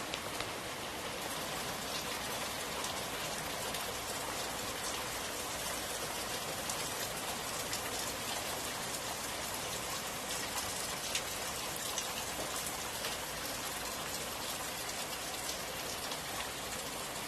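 Heavy rain falling steadily, with many individual drops pattering close by.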